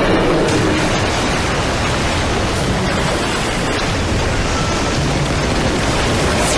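Steady, dense rushing noise of a film's storm sound effects, heavy rain and wind with no break or rhythm.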